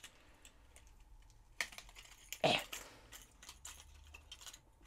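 Fishing lure's plastic-and-cardboard blister pack being handled and worked open by hand: scattered small clicks and crackles, with two louder clicks about one and a half and two and a half seconds in.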